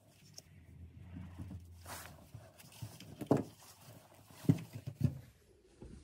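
Handling noise as spade connectors are pushed onto a washing-machine drain pump's terminals and the pump and test cord are laid on the table. There is rustling, then a few sharp knocks about three, four and a half and five seconds in. The pump is not running.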